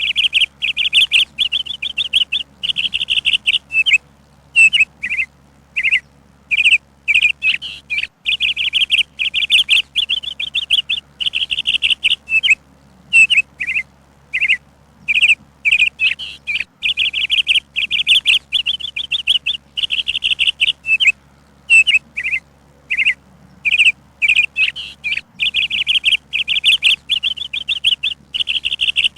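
Songbird chirping: quick runs of short high notes and trills, phrase after phrase with brief pauses between.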